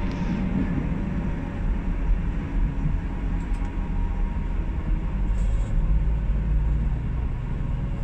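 Tram running along the rails at reduced sight speed: a steady low rumble of wheels on track.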